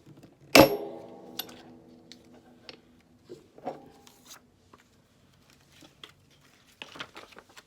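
A metal button-making part knocks sharply on the work surface about half a second in and rings for a couple of seconds as it fades, followed by a scatter of small clicks and taps of parts being handled.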